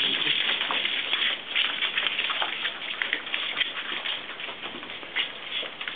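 Busy scuffling and light pattering of a Border Collie mother and her puppies moving about on a hard floor, with many small ticks and clicks.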